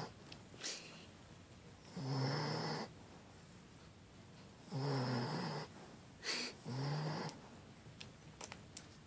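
A sleeping dog snoring loudly, with a pitched, rasping snore every two to three seconds, each lasting up to about a second.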